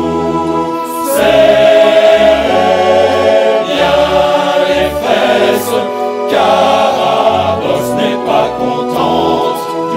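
A musical-theatre chorus sings the last word of a line, then holds loud choral chords over instrumental accompaniment with a bass line moving in steps.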